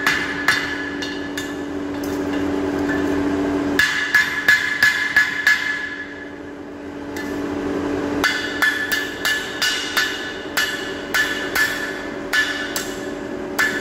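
Hammer blows on a metal workpiece on an anvil in hand forging, with the anvil ringing after each blow. The blows come in runs, about two or three a second, with a short pause near the middle, over a steady low hum.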